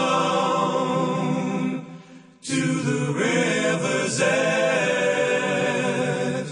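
Background song of layered singing voices holding long notes, with no clear words. The voices fade out about two seconds in and come back suddenly half a second later.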